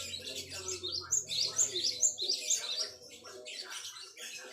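Gelatik batu (cinereous tit) singing a fast, busy run of high, sharply sweeping chirps, several notes a second, loudest through the middle.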